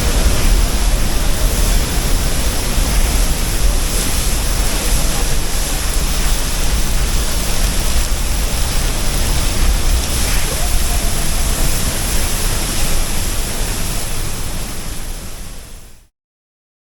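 Waterfall roaring, a loud steady rush of falling water with a deep rumble; it fades out near the end.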